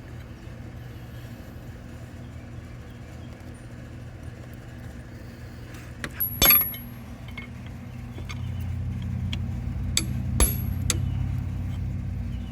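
Hand tools clinking against metal, with a sharp ringing strike about six and a half seconds in and a couple more around ten seconds. Underneath is a steady low hum that grows louder in the last few seconds.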